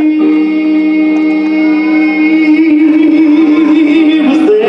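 A man singing one long held note over sustained Hammond-style organ chords. The note wavers slightly near the end, then steps up in pitch.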